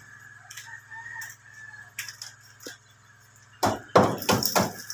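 Chickens calling, with a louder run of calls near the end over a faint steady hum.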